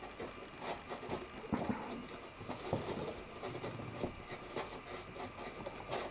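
A hand gimlet twisted by its shank into cardboard backing board to bore a small hole, giving irregular small clicks and scratches as it bites.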